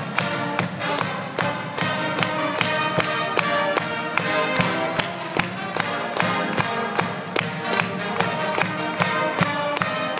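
College pep band playing a tune on brass horns over a steady drum beat, with sharp drum strokes about two to three times a second.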